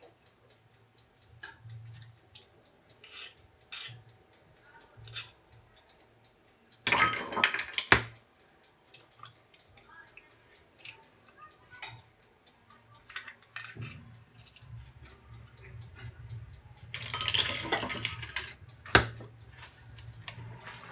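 Eggs being cracked and separated by hand over glass and ceramic bowls: scattered light clicks and taps of eggshell on the bowls, with two louder bursts of cracking and clatter, about seven seconds in and again near eighteen seconds.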